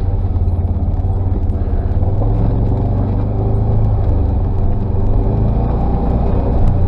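Side-by-side UTV's engine running steadily as it drives along a rough dirt trail, a loud, even low drone.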